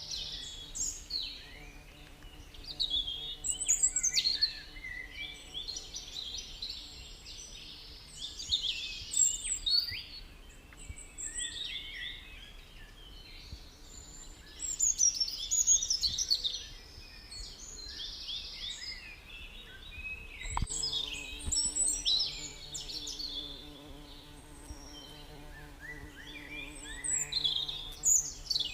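Songbirds singing and chirping in bursts of quick high phrases every few seconds, over a faint steady low hum.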